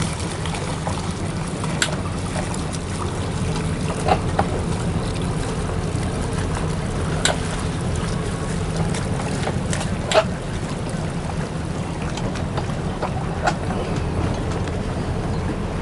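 Boat engine running steadily at low speed, with a few short sharp knocks.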